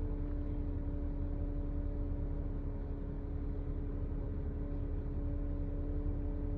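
Nissan Serena C26 engine running steadily under a constant motor-like whine over its low rumble: the early-stage abnormal noise that a dealer traced to the alternator.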